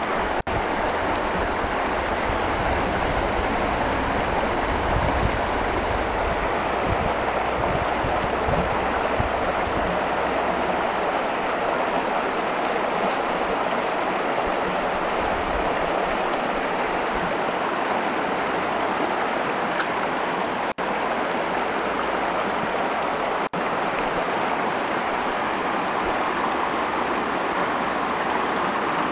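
Mountain stream rushing over and around rocks: a steady, even sound of flowing water.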